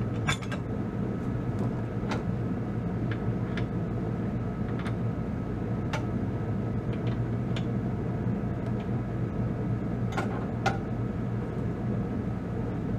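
Kubota B2650 tractor's diesel engine running at a steady idle, with scattered light metallic clicks and knocks over it, two of the sharper ones about ten seconds in.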